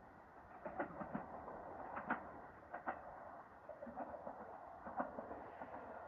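Train wheels clicking over rail joints, in close pairs of clicks at irregular spacing over a steady rolling noise.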